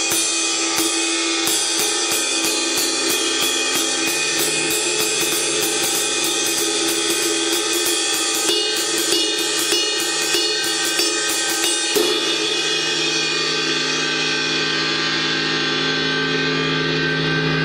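Paiste PST 5 22-inch Rock Ride cymbal played on the bow (body) with a wooden drumstick, a steady ride pattern of about three strokes a second over a dense, bright wash. The strokes stop about twelve seconds in and the unmuffled cymbal is left ringing, slowly fading; the cymbal is a little ringy.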